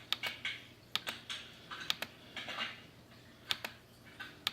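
Typing on a computer keyboard: irregular sharp key clicks and short clatters of keystrokes.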